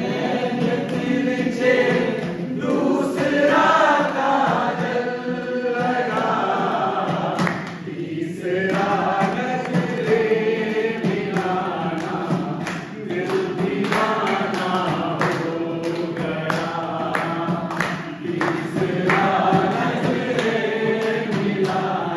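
A group of men singing a song together, with hand claps keeping time.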